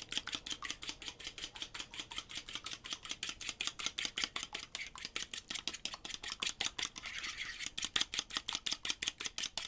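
Eggs being whipped by hand in a bowl: the utensil clicks against the bowl in a fast, steady rhythm of about six strokes a second.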